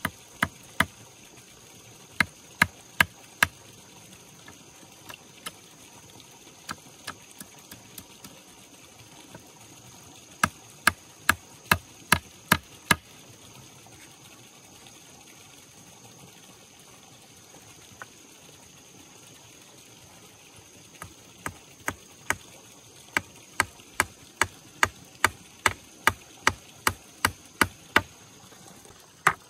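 Runs of sharp blows from a hand tool striking wood, about two to three a second, with pauses between runs and a long steady run near the end. A steady hiss sits underneath.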